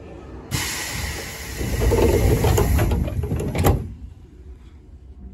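Air-operated sliding passenger door of a 3000 series commuter train closing. A hiss of air starts about half a second in, the door rumbles across, and it shuts with a sharp knock just under four seconds in.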